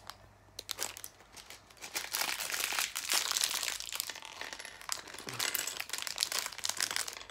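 Advent calendar packaging crinkling and rustling as it is handled and pulled open, in quick irregular crackles that start about a second in.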